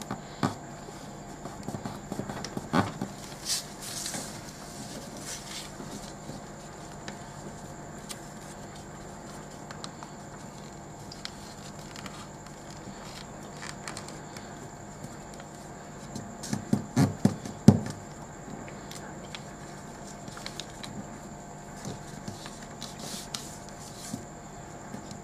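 A sheet of A4 paper being folded and creased by hand on a tabletop: scattered rustles, scrapes and clicks, with a quick run of several thumps about two-thirds of the way through. A faint steady hum and hiss lies underneath.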